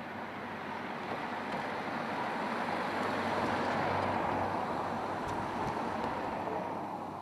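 A car driving past on the road, its tyre and engine noise swelling to a peak about four seconds in and fading away.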